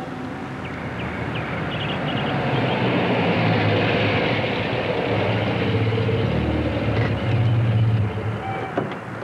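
A vehicle going by: a rumbling noise with a low hum that builds over the first few seconds, holds, and drops away near the end.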